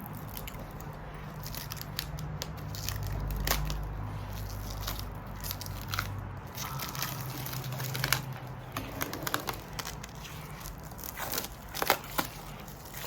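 Packaging being crinkled, torn and pulled off a newly unboxed item by hand: irregular crackling and crunching, with a sharper snap near the end.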